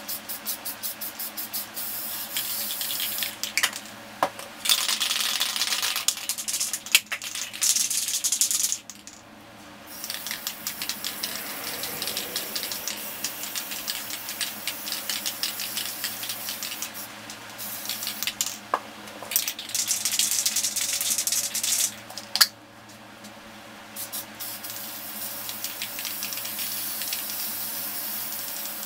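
Aerosol spray paint cans: the mixing ball rattles fast as a can is shaken, then paint is sprayed in several hissing bursts. More shaking and spraying alternate, with a longer steady spray near the end.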